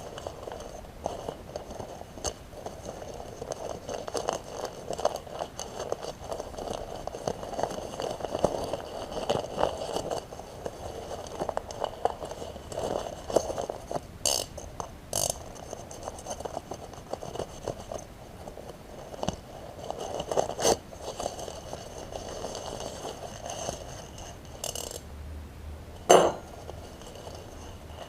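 Hands unpacking a boxed hydro pump: cardboard and plastic packaging handled, with many small clicks and knocks of hard plastic, and one sharper, louder knock near the end.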